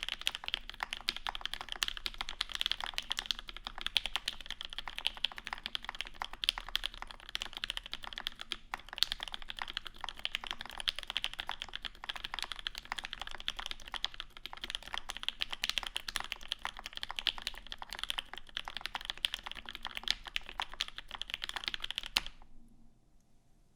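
Fast, continuous typing on a custom mechanical keyboard: lubed Alpaca linear switches on a 1.5 mm UHMWPE plate in a polycarbonate case with GMK keycaps, a dense patter of keystrokes. The typing stops abruptly near the end.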